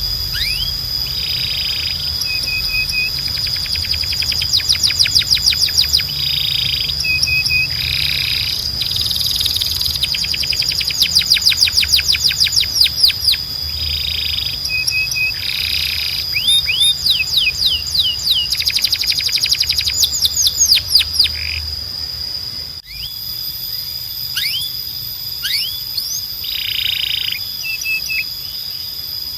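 Spanish Timbrado canary singing: phrases of very fast rolling trills alternating with short whistled notes and buzzy passages, repeating every few seconds. A steady high-pitched tone runs underneath.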